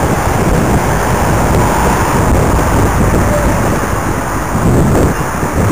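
Wind buffeting the microphone of a cycling camera while riding, a steady loud rush with a low rumble, with traffic and road noise underneath.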